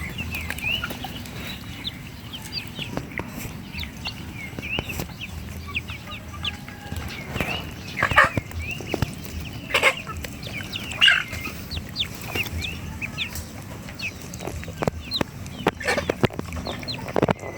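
A brood of 11-day-old ducklings peeping continually in short, high calls, with a few louder calls about 8, 10 and 11 seconds in and scattered sharp clicks.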